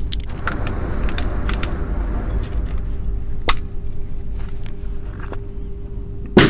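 Metallic clicks of a PCP air rifle being handled and loaded, a sharper click about halfway, then a single loud shot from the unregulated (straight-flow) Jaeger carbine near the end. A steady low hum sits underneath.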